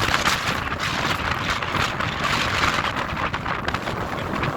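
Strong, gusty wind rushing and buffeting against the microphone on an exposed mountainside, a loud steady noise that rises and falls with the gusts.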